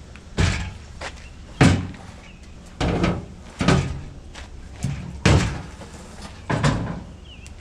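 A series of about seven heavy knocks, roughly a second apart, from parts being bumped and worked loose during the buggy's disassembly.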